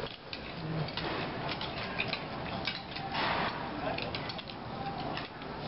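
Thin plastic bags crinkling and rustling as lettuce and herb leaves are pulled out of them, a run of small irregular crackles with a louder rustle about three seconds in.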